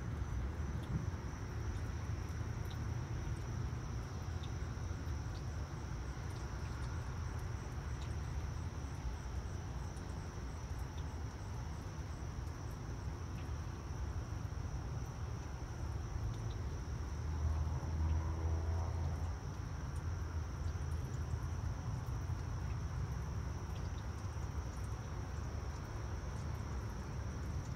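Steady high-pitched trilling of insects in the grass, over a low rumble. About two-thirds of the way through, the rumble swells briefly and a faint rising tone passes.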